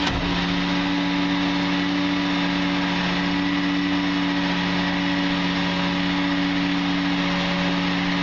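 Rear-load garbage truck (1997 Crane Carrier LET with a Wayne Royal GT body) running its hydraulics for the cart tipper, with the engine held at a raised, steady speed: an even, unchanging drone and hum. There is a single click at the very start.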